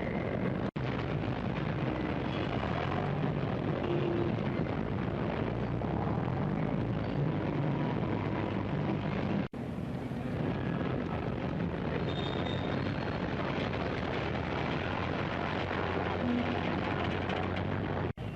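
1920s-style city street ambience: a dense, steady wash of traffic rumble and street noise. The sound cuts out for an instant about a second in, again about halfway through, and near the end.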